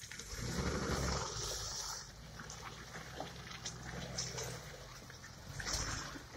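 Suzuki Vitara off-roader's engine running as it crawls through mud, a low rumble that swells about a second in and again near the end as it comes close. Scattered short snaps and clicks sound over it.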